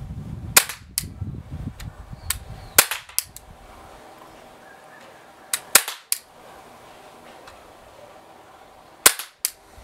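Glock 17 CO2 .177 pellet pistol firing a string of sharp pops, loosed in clusters of two or three shots with pauses between, the loudest about three seconds in. A low rumble sits under the first few shots.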